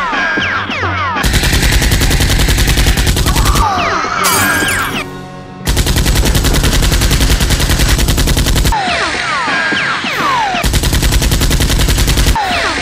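Rapid machine-gun fire sound effects in three long bursts, with quick falling whistle-like tones between the bursts, over background music.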